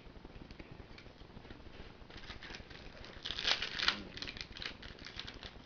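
Faint rustling and crinkling of trading cards and their foil pack wrappers being handled, with a few louder crinkles a little past the middle.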